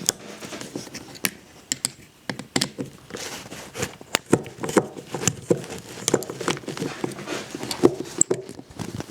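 Screws being backed out of the cartridge retaining plate on a brass shower valve, a string of irregular sharp metal clicks and small scrapes.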